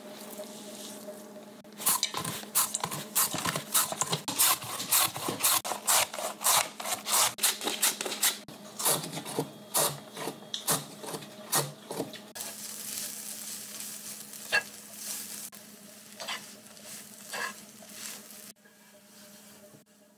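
Strips of fish cake stir-fried in a frying pan: about ten seconds of rapid, irregular clattering and scraping, then a steady sizzle with a few clicks that cuts off near the end.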